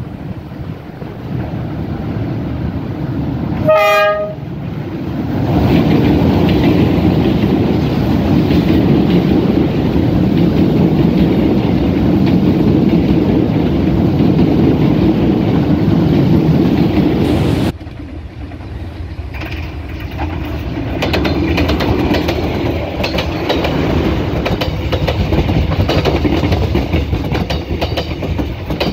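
Passenger train with a locomotive: one short horn blast about four seconds in, then the locomotive and coaches pass close by, rumbling loudly with wheels clattering on the rails. A little past halfway the sound drops suddenly, then the coaches roll past again with rhythmic clickety-clack from the wheels.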